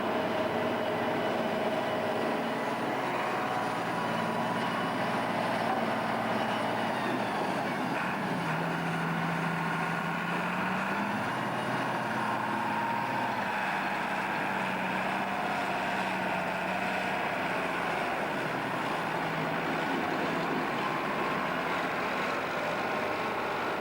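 Diesel engines of maize forage-harvesting machinery running steadily under load. The engine note drifts slowly up and down, with a higher mechanical whine over it.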